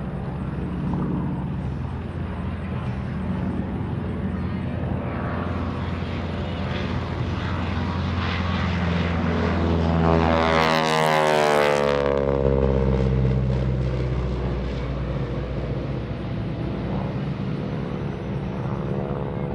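North American SNJ Texan's Pratt & Whitney R-1340 Wasp radial engine and propeller running at power during an aerobatic display. The plane makes a close fly-by about ten seconds in: it gets louder, then the pitch drops sharply as it passes, and the drone settles back to steady.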